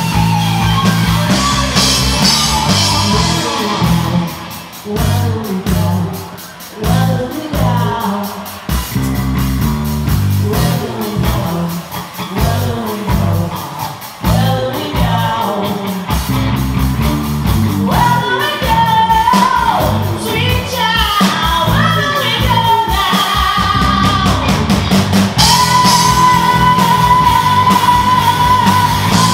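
Live rock band playing: a lead vocalist singing over electric guitar, bass guitar and drum kit, with a long held high note in the last few seconds.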